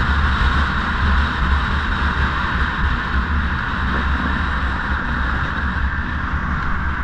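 Steady wind rush buffeting a helmet-mounted microphone while riding at speed on a road, with road noise mixed in.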